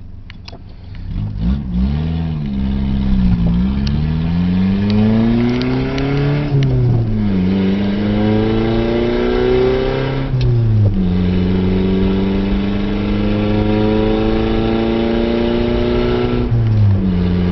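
Toyota Tercel's four-cylinder engine and exhaust, fitted with a Harley-Davidson silencer, heard from inside the cabin with the windows up as the car pulls away. The engine note climbs, falls back at gear changes about 7 and 11 seconds in, then runs steadily at cruising speed, dropping in pitch again near the end.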